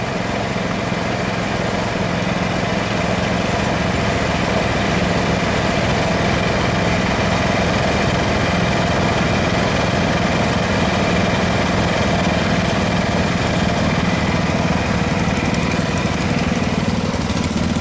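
Small lawn tractor engine running steadily at an even speed, a constant drone with no changes in pitch.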